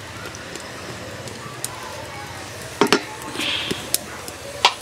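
Goose and potato curry simmering in an aluminium pot, with scattered small pops and crackles. Two sharp knocks, one about three seconds in and one near the end.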